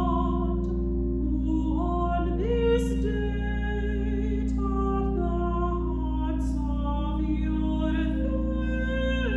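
A soprano voice singing a slow, sacred solo line in long held notes, rising to a higher note about two seconds in, over a steady low sustained accompaniment.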